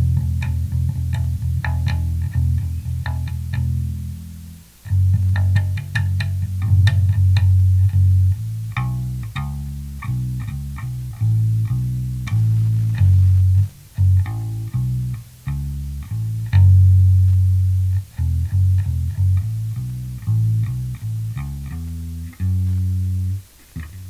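Fender PJ bass played through a Sound City Master Lead 50 valve guitar head on a clean setting: a line of plucked notes, some held and ringing, with string and fret clicks on the attacks.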